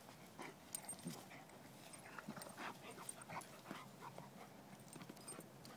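Flat-coated retrievers play-wrestling: faint, short dog noises in quick irregular succession, with scuffling of their bodies on the grass.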